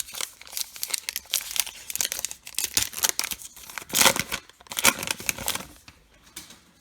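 Baseball card pack wrapper being torn open and crinkled, in a run of quick crackling rips that is loudest about four and five seconds in and dies away near the end.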